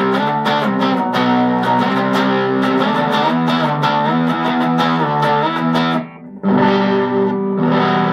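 Electric guitar (Ibanez Performer PF-200) played through a Danelectro Cool Cat Fuzz CF-1 pedal set with fuzz at minimum, tone in the middle and volume full, into a Pignose amp: lightly fuzzed, ringing chords strummed repeatedly, with a brief break about six seconds in before the chords ring out again.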